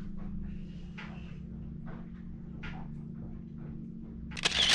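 Faint rustling and small clicks of hands handling a toe and first-aid supplies over a steady low hum, with a short, loud crackle near the end.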